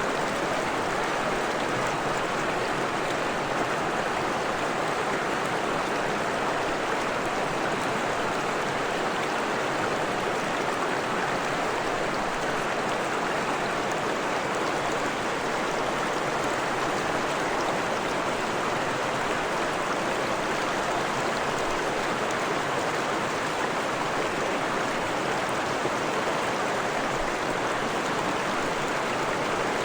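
Freshwater stream flowing over rocks, a steady even rush of water that holds the same level throughout.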